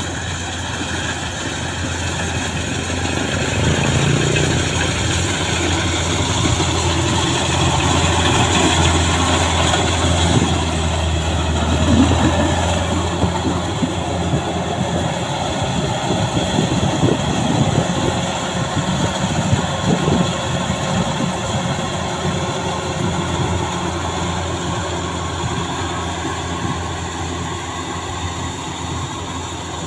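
Kubota rice combine harvester running steadily as it cuts and threshes rice: a steady engine and machinery drone with rattling from the harvesting mechanism, louder through the middle and easing toward the end.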